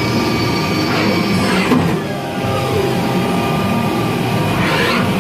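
The spindle of a Mazak Variaxis 500 five-axis CNC vertical mill running at 12,000 rpm: a steady whine of several high tones over the machine's running noise, with a brief knock a little under two seconds in.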